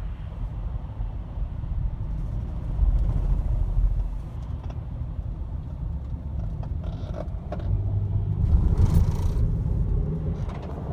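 Low, steady rumble of road traffic noise from cars on the freeway. It swells about three seconds in and again from about eight seconds, the second time with a brief hiss.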